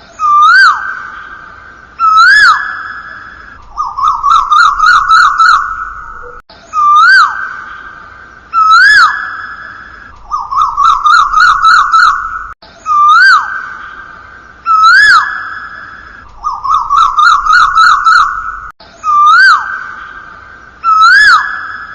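A looped whistle-like electronic sound repeating about every six seconds: two swooping notes that rise and fall, then a fast warbling trill, each cycle cutting off abruptly before the next begins.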